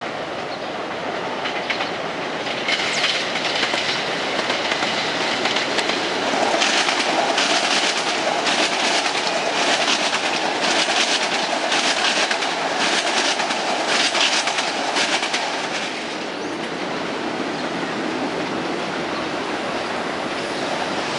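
Metro-North electric commuter train passing on the elevated Park Avenue line, its wheels clattering rhythmically over the rail joints about once a second. The clatter is loudest from about 6 to 15 seconds in, then gives way to a quieter steady rumble as the train moves off.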